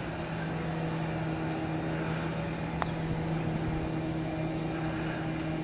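A golf club strikes the ball once in a short chip shot: a single sharp click about three seconds in, over a steady low hum.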